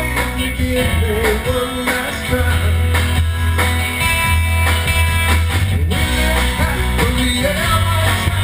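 Rock band playing with guitars, bass and drum kit, and a voice singing over them.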